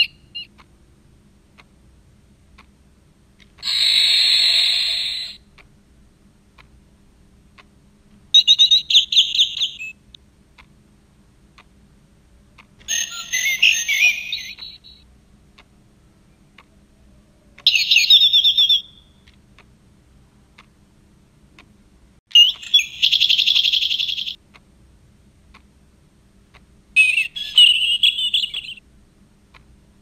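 Esschert Design bird-song wall clock playing its recorded European garden-bird songs one after another, as it does on each hour: six short songs and calls of different species, each a second or two long, with a few seconds of quiet between.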